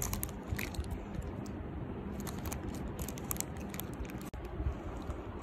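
A metal spoon stirring and scooping a soft, wet mashed food mixture inside a plastic bag: squishing, with irregular small crinkles and clicks from the plastic.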